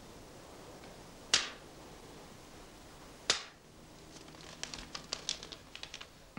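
A paper $100 banknote snapped taut between two hands twice, about two seconds apart, each a sharp crack, then a run of small crackles as the note is rubbed and crinkled between the fingers while it is checked for forgery.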